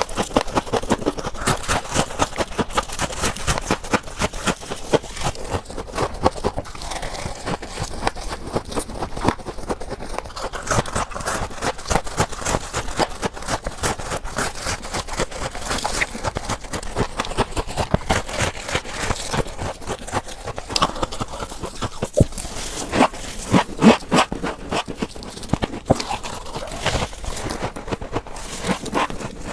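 Frost ice from a refrigerator freezer being scraped and crunched: a dense, steady run of crisp crackles and crunches, with a few louder crunches about three quarters of the way through.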